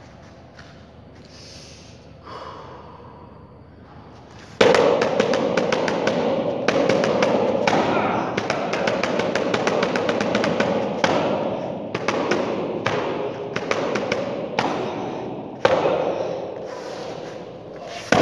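Fast, continuous strikes thudding against a foam mat pad hung on a window grille. The strikes start suddenly about four and a half seconds in and run on, with brief pauses.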